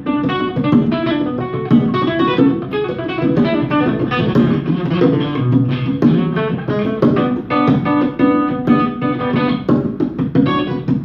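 Instrumental music played live: a cutaway acoustic-electric guitar picks quick runs of notes, with hand-played conga drums.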